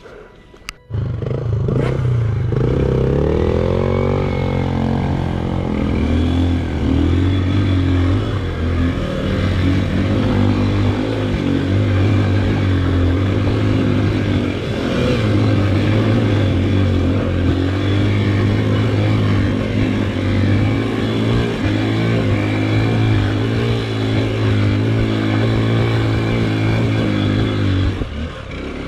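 Motorcycle engine running under way. It comes in suddenly about a second in, revs up over the next couple of seconds, then pulls steadily.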